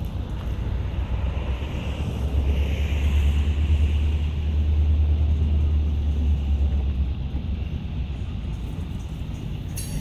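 Low rumble of a freight train during switching moves, swelling louder for a few seconds in the middle.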